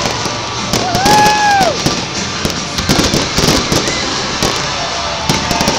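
Fireworks going off in quick succession, a rapid run of pops and crackles that is busiest midway, with music playing underneath and a held note sliding off about a second in.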